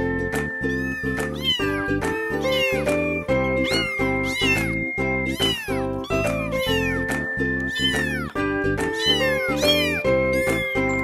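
Background music of steady held chords, with high kitten meows over it, about two or three a second, each rising and then falling in pitch.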